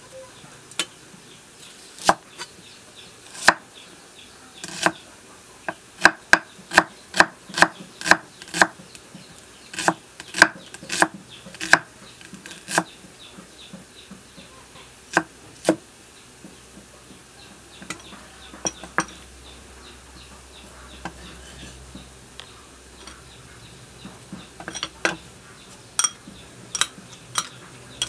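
Cleaver chopping shallots on a wooden chopping board: sharp single knocks, with a quick run of strokes several seconds in, followed by slower, scattered strokes.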